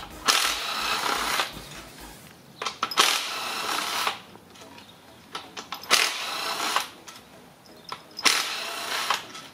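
Makita cordless impact with a 10 mm socket, run in four short bursts of about a second each to back out the valve body bolts on a GM 6T-series automatic transmission. Light clicks of loosened bolts being handled come between the runs.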